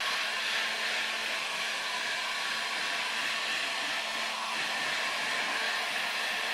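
Steady loud rush of air from a motor-driven blower tool, with a low hum under it; it starts and stops abruptly.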